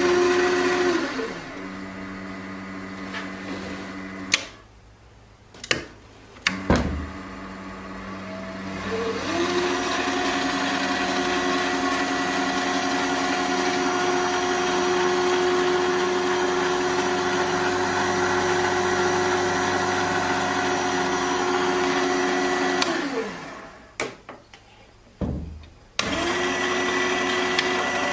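Proxxon mini metal lathe's spindle motor running unloaded with a steady whine in several tones. It is switched off and on several times, with clicks of the switch. It runs slower at first, steps up to a higher speed about nine seconds in, winds down near the end and starts again just before the end.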